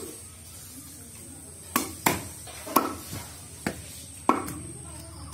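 Knife chopping raw chicken on a wooden log chopping block: five or six sharp chops starting a little under two seconds in, roughly one every half second.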